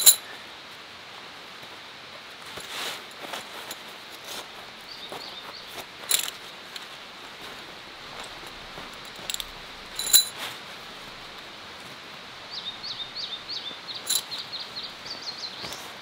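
Metal tent stakes clinking against each other three times, sharp and ringing, over a steady rush of stream water. A bird chirps a quick run of short notes near the end.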